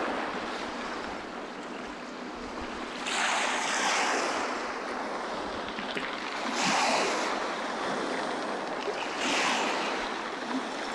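Small waves washing up a pebble beach: a hissing rush that swells and falls back about every three seconds, three times.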